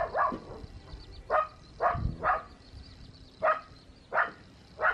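Dog barking in short, sharp yips, about eight of them at uneven intervals.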